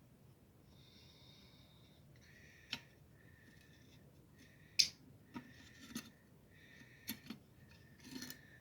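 Small pet parrots giving repeated short, buzzy chattering calls, with several sharp clicks and knocks in between, the loudest about halfway through.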